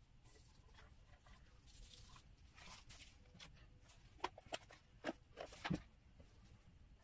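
Near-quiet room with a handful of faint, sharp taps and knocks bunched together a little past the middle.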